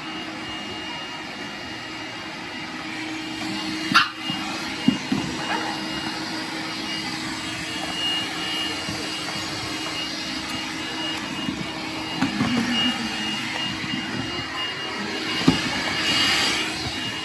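Vacuum cleaner motor running with a steady hum, and a French bulldog puppy barking at it. A few sharp knocks come about four seconds in and near the end.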